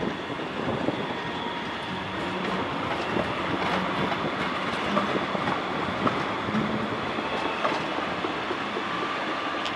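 Electric trams rolling slowly over station tracks: steady wheel-on-rail rolling noise with scattered clicks as the wheels cross rail joints and points.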